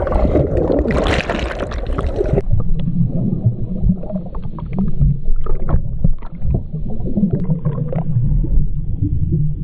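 Water splashing and bubbling right at the microphone for about two and a half seconds, then the camera goes under and the sound suddenly turns muffled: a low underwater rumble of moving water with scattered clicks and crackles.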